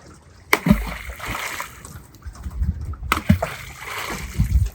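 Two splashes about two and a half seconds apart: a pair of helmet conchs tossed back into the sea, each hitting the water with a thump and a spray of splashing.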